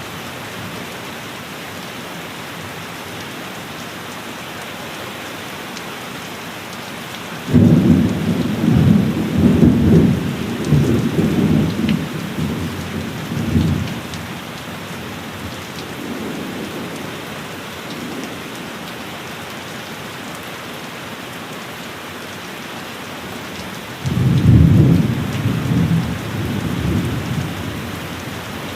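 Steady heavy rain with two rolls of thunder: the first breaks in suddenly about a quarter of the way through and rumbles on for several seconds, the second comes in sharply near the end and fades over a few seconds.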